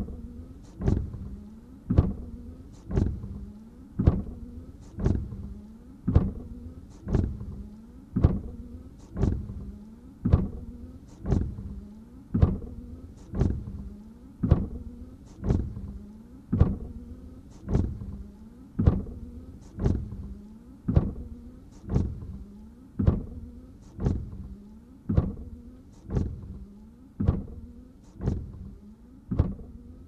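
Car windshield wiper sweeping back and forth over dry glass, about one stroke a second: each stroke starts with a sharp knock and trails off in a rubbing sweep.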